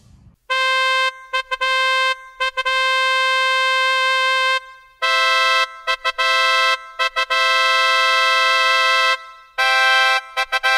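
A buzzy, horn-like electronic tone sounding in word-length bursts that start and stop abruptly, a little higher in pitch after about five seconds: a sound-effect voice standing in for the speech of a costumed mascot.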